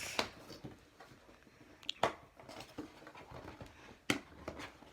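A cardboard kit box being opened and handled: faint rustling with a few sharp taps and clicks, about two seconds apart, the loudest near the end.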